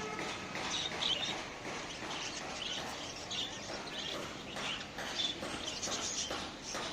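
A crowd of caged parrots chirping and chattering, many short calls overlapping several times a second.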